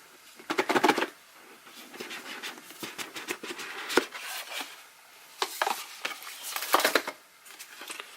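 Hands handling a product box and its packaging: irregular rustling and scraping with clicks and small knocks, loudest in clusters about half a second in and again near seven seconds.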